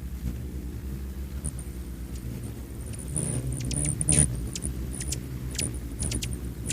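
Hummingbird wings humming in a low, steady buzz, with short high-pitched chirps and ticks scattered throughout; the hum swells louder for a moment about three to four seconds in.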